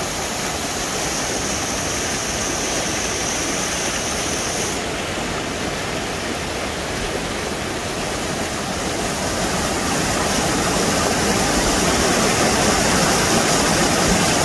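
A creek running high, its whitewater rushing over rocks and past a concrete wall: a steady, dense rush of water that gets louder over the last few seconds.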